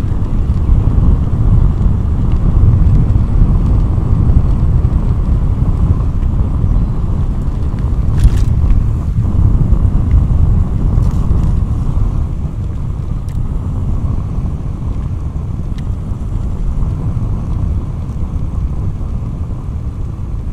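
Wind buffeting the microphone during a bicycle ride: a steady low rumble that eases a little about twelve seconds in, with a few faint clicks.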